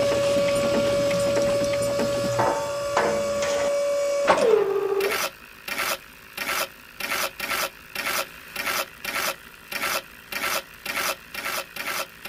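Small geared DC motor of a homemade mini cement mixer whining steadily, then winding down about four seconds in. After that, a small trowel scrapes through wet concrete mix in a metal tray in regular strokes, about two a second.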